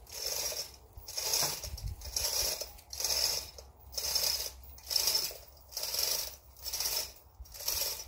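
Hand ratchet being worked to tension a line on a tree: about nine even strokes, roughly one a second, each a short rasping run of ratchet clicks.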